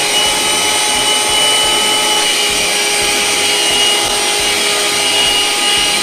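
Parkside cordless handheld vacuum cleaner running steadily: a constant motor whine over the rush of air.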